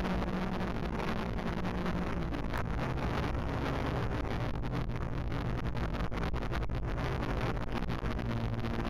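Radio-controlled model plane's motor and propeller running, its pitch shifting up and down with the throttle, with wind rushing over the microphone.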